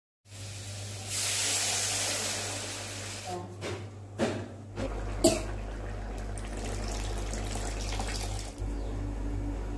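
Water poured into a hot aluminium kadai of frying masala, giving a loud hiss for about two seconds. A few sharp knocks follow, and a steady low hum runs under the rest.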